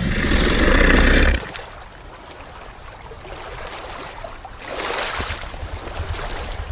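Warthog vocalising: a loud call for about the first second and a half, then softer rough, uneven sounds that swell again near the end.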